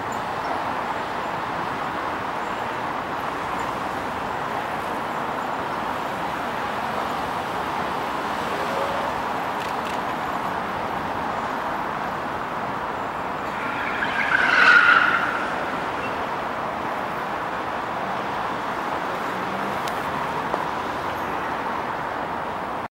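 Steady outdoor city ambience: a continuous hum of road traffic out of sight. About two-thirds of the way through, a louder, higher-pitched sound swells up for a second or two and fades.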